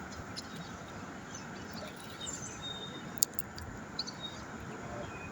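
Steady outdoor background noise with a few faint, short bird chirps, and one sharp click about three seconds in.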